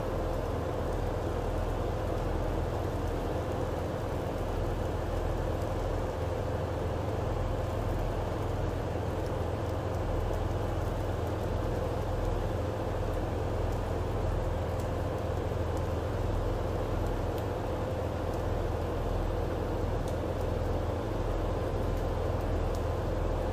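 Steady low drone of a ship's engines and machinery, with a constant hum held over it and no change in level.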